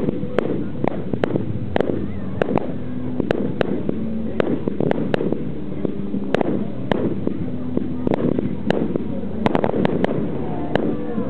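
Fireworks display: an irregular string of sharp bangs from launches and bursting aerial shells, several a second, thickest a little before the end.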